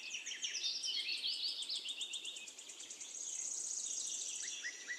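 Faint background birdsong: several small birds chirping in quick, high, downward-sweeping notes, with a rapid high trill in the middle.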